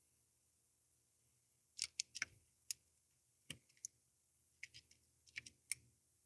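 Light, sharp clicks and taps of small metal guitar tuner hardware being handled and fitted, in three short clusters.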